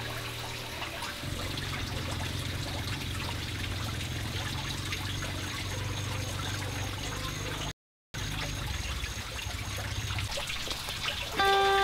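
Water trickling and splashing steadily, broken by a brief silent gap about two-thirds of the way through.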